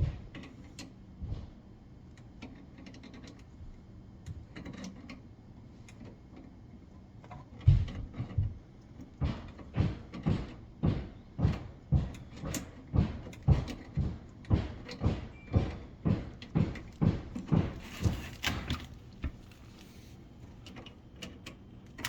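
A wrench loosening the compression nut on an ice maker's water supply line: an even run of short metal strokes, about two a second, starting about eight seconds in and stopping a couple of seconds before the end, with a few single knocks earlier.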